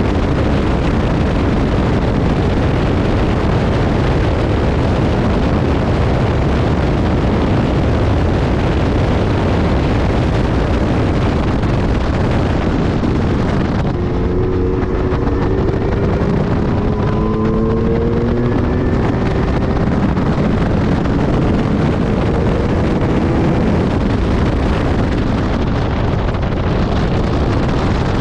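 Loud wind noise buffeting the microphone in the open-cockpit Lotus 3-Eleven at track speed, with its supercharged V6 engine running underneath. Around the middle the engine note comes through the wind several times, rising in pitch.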